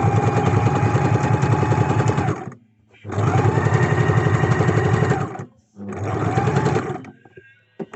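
Electric sewing machine stitching in three runs, the first two a couple of seconds each and the last shorter, with brief stops between. Its motor whines over a fast, even needle rhythm.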